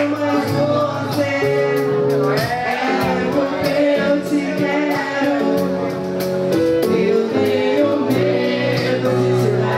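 A woman singing into a handheld microphone over a live band: sustained bass and chord notes under her voice, and drums with a steady cymbal beat.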